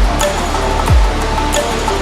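Electronic background music with a beat. Deep bass hits slide down in pitch three times in two seconds, over crisp high percussion and short repeating tones.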